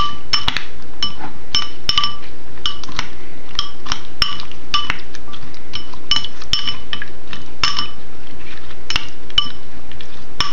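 Chopsticks clinking against a white ceramic bowl while stirring bitter melon slices into tempura batter. The taps come irregularly, about two or three a second, each with a short bright ring from the bowl.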